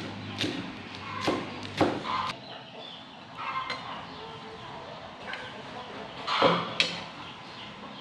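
A cleaver knocking on a wooden chopping board while spring onions are chopped: a few sharp knocks in the first two seconds, quieter scraping of the blade across the board, then a louder knock about six and a half seconds in.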